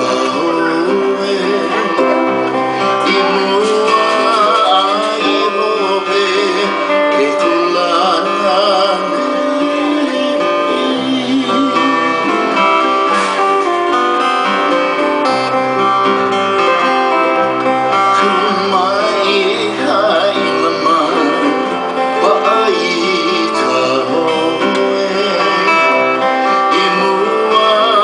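Live traditional Hawaiian music: a man sings over slack key guitar and ukulele playing.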